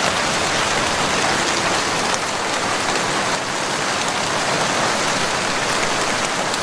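Rain falling steadily: a dense, even hiss of a downpour.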